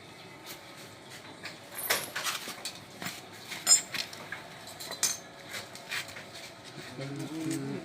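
Irregular metallic clinks and knocks, like tools or small metal parts being handled and set down.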